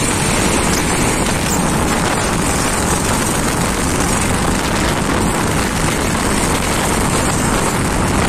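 Steady wind rush buffeting the microphone of a camera on a moving motorcycle, over a constant drone of engine and road noise.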